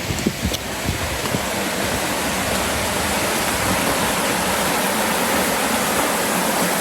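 Woodland stream water rushing steadily, gradually getting louder. Wind buffets the microphone in the first second or so.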